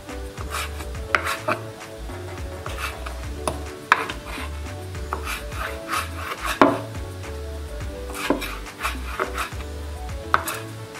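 Kitchen knife chopping a small red bell pepper on a wooden cutting board: irregular knocks of the blade striking the board, a few each second, with some louder strikes.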